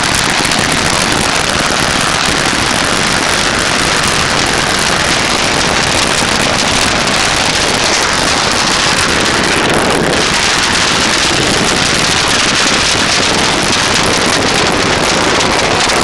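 A dense, unbroken barrage of bottle rockets and firecrackers going off together, merging into a loud, steady crackling hiss.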